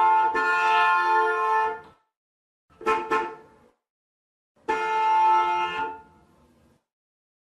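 Car horn honking: a long blast of about two seconds, two quick short toots about three seconds in, then another blast of a little over a second. Each sounds as a steady, buzzy, pitched note.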